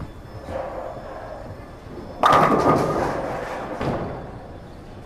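A ten-pin bowling ball rolls down a wooden-look synthetic lane, then strikes the pins about two seconds in: a loud crash and clatter of pins that dies away over about a second, followed by a smaller knock about a second and a half later.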